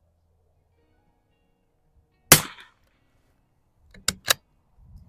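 A Mossberg 144 .22 rimfire target rifle fires one shot, a sharp crack with a short ring after it. About two seconds later come two quick sharp clicks a quarter-second apart, the bolt being worked.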